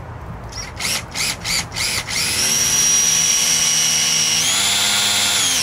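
Cordless drill with a 1 3/8-inch spade bit boring through a plastic bucket lid: a few short trigger bursts, then a steady motor whine that steps up in pitch near the end.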